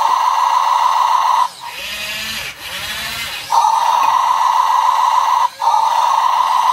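Mofun 1026 toy RC excavator in demo mode: its built-in speaker plays a loud, warbling electronic tone, which stops for about two seconds after the first second and a half and again for a moment near the end. In the gaps the quieter sound of its small motors moving the arm comes through.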